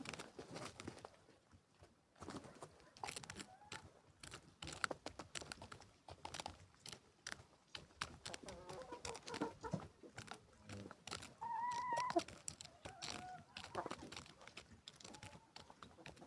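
Chickens pecking at cabbage: many quick, irregular pecking clicks, with a few short clucks and a wavering call about twelve seconds in.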